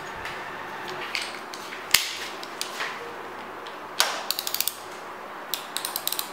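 Socket ratchet wrench clicking in quick runs as it turns a bolt at the motorcycle's steering head, undoing the handlebar riser mountings and top triple tree centre bolt. A single sharp metal clack about two seconds in is the loudest sound.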